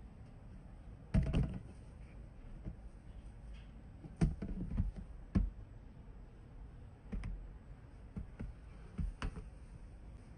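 Irregular sharp clicks and knocks: one about a second in, a cluster around four to five seconds in, and a few more near the end. They are clothes hangers knocking on a metal clothes rail as garments are pushed along it.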